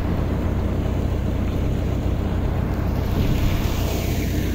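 Steady wind noise buffeting the microphone, a low rumble with no sudden events.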